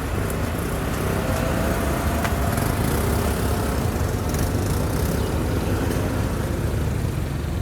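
An engine idling steadily with an even low rumble, with a few faint light clicks over it.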